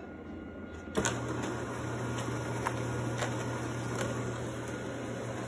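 A sharp click about a second in, then a steady electric motor hum with a few light clicks: a motorised self-cleaning litter box starting its cycle.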